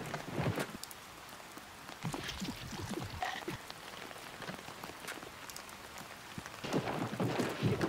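Steady rain falling, with many scattered individual drops striking close by.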